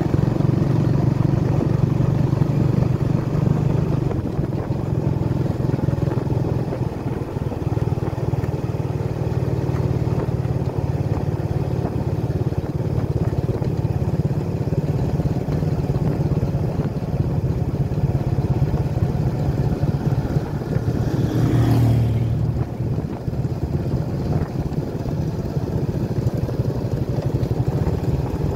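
Motorcycle engine running steadily while the bike is ridden along the road, with one short rising sweep about three quarters of the way through.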